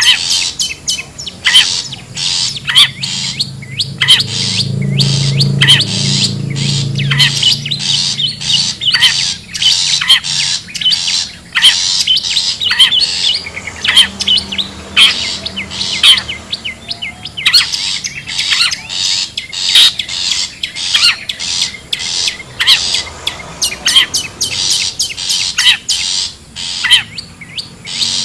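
Long-tailed shrike (cendet/pentet) calling: rapid, harsh chattering calls and squawks in quick succession, the kind of call played to lure wild shrikes.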